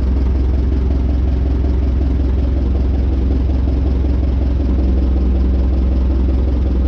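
Clark forklift engine running at a steady idle while driving the hydraulic pump, which the owner thinks still needs priming after a lift cylinder install. A steady hum joins about two thirds of the way through.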